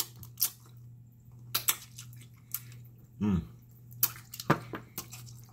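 Close-up wet mouth sounds of eating pig feet by hand: scattered smacks, sucks and clicks of lips and tongue on the meat and bone, with a brief hum of the voice about three seconds in.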